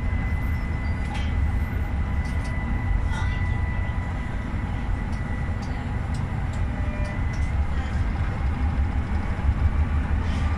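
GEC-Alsthom TFS tram running along the track, heard from the driver's cab: a steady low rumble with a thin high whine that fades about halfway through.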